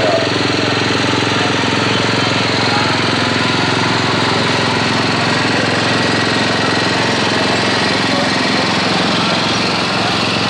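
A loud, steady mechanical drone with a buzzing hum, even and unbroken.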